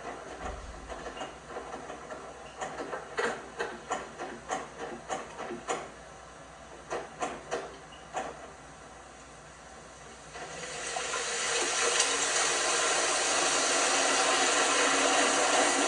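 LG washing machine: a run of soft knocks about twice a second, then from about ten seconds in a rising hiss of water rushing into the drum, which then holds steady.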